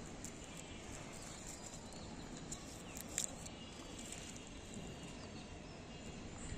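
Faint outdoor background noise: a steady low rumble with a few faint high chirps and a short click about three seconds in.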